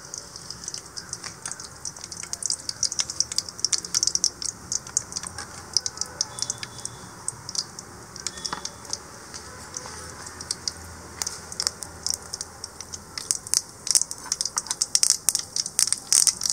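Mustard seeds popping and crackling in hot oil in a kadai, over a steady sizzle. The pops come thicker near the end as the seeds start to splutter, the sign that the oil is hot and the tempering is ready.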